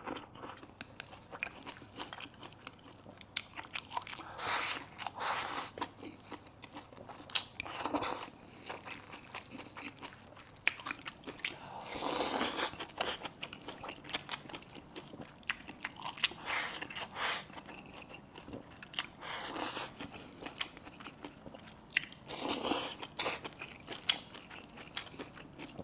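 A person chewing and biting a stir-fry of jizong (chicken) mushrooms and pork over rice, close to the microphone. Small mouth clicks run throughout, with louder crunchy chewing stretches every few seconds.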